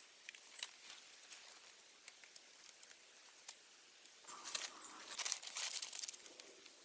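Dry palm fronds rustling and crackling as they are handled, with faint scattered ticks at first and a louder, crinkly stretch from about four seconds in.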